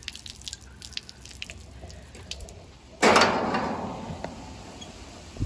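Water trickling from a garden hose over a ceramic mug and dripping and splashing onto concrete, in faint scattered drips. About three seconds in, a sudden loud rush of noise fades away over a second or so, and a short thump comes at the end.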